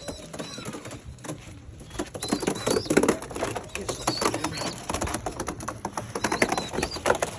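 Pigeons in a loft: rapid clattering and scuffling, busier from about two seconds in, with short high chirps.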